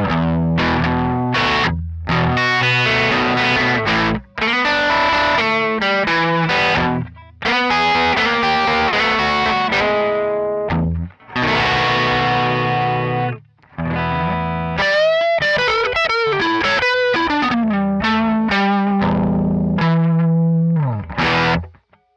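Gibson ES-135 semi-hollow electric guitar played through a Yamaha THR10 amp with a distorted tone, recorded direct from the amp. Strummed chords come with a few brief stops, then a run of bent, wavering single notes in the middle. Near the end a low note slides down and the playing stops.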